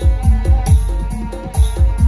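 Loud Bantengan accompaniment music: deep drum strokes that drop in pitch, about three a second, under a melodic line.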